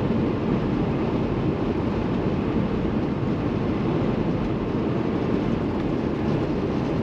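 Steady cab noise of a Kenworth T680 semi truck cruising at highway speed: the Paccar MX13 inline-six diesel running under steady tyre and road noise.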